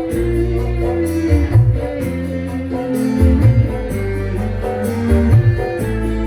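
Music with a steady beat, heavy bass and a repeating high percussion, played through a PA sound system.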